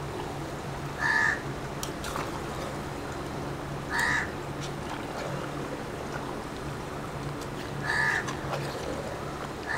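A crow cawing, single short caws a few seconds apart, four in all, over a low steady hum.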